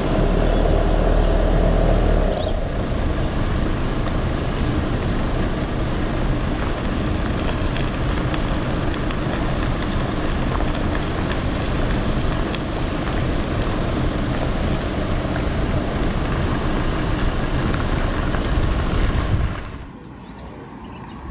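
Car driving along a road, heard from a camera mounted on the outside of the vehicle: steady road and wind noise, with a louder low hum in the first couple of seconds. Near the end it drops away suddenly to a much quieter outdoor background.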